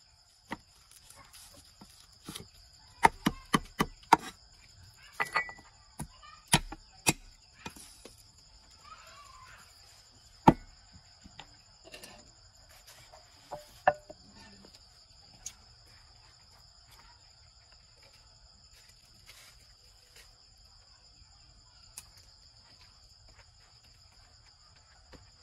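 Cleaver chopping on a thick wooden chopping block: a quick run of sharp strikes a few seconds in, then scattered single knocks, the loudest about ten seconds in. After that only a steady high insect trill remains.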